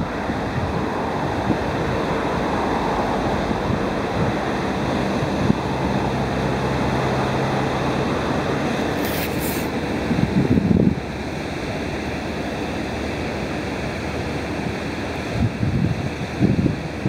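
Wind blowing across the microphone: a steady rushing with louder gusts about ten seconds in and again near the end. A faint low hum sounds under it for a few seconds midway.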